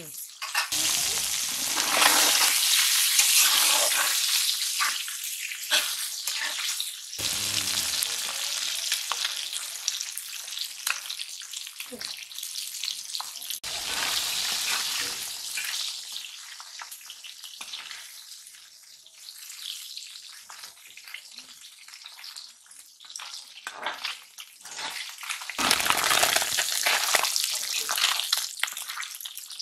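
Shing fish (stinging catfish) sizzling as they fry in hot oil in a karahi. The sizzle flares up a few times as the fish are turned with a metal spatula, with light scrapes and taps of the spatula on the pan.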